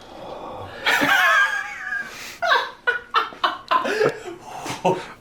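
People laughing: a long, high-pitched laugh starts about a second in, followed by short bursts of chuckling.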